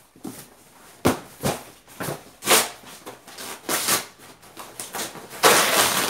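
Cardboard shipping boxes being handled and opened: several short rustles and knocks of flaps and lids, then a longer, louder scraping rustle of cardboard near the end.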